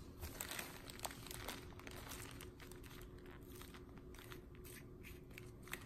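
Faint crinkling and rustling of a plastic wrapper as hands press and move a plastic-wrapped coil of fiber optic strands, with scattered small clicks.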